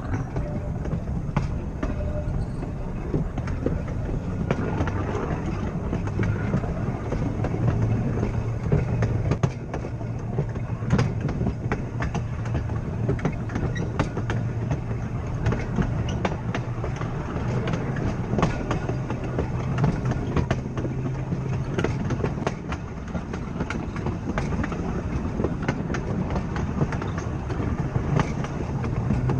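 Blackpool 'Boat' open tram car running along the track: a steady low rumble and hum from wheels and running gear, with frequent irregular clicks and clacks as the wheels pass over the rail joints.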